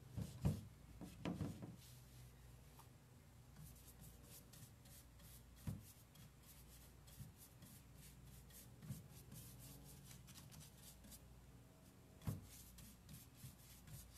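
Faint scratchy strokes of a wax brush scrubbing dark furniture wax into a painted wooden drawer, with a few soft knocks.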